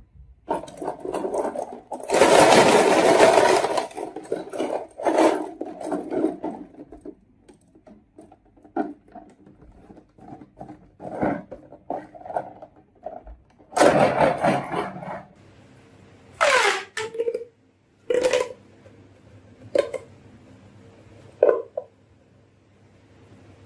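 Marbles rolling and rattling along a wooden marble run, with a long loud rattle about two seconds in and another about fourteen seconds in, and scattered clacks as marbles drop and hit the track.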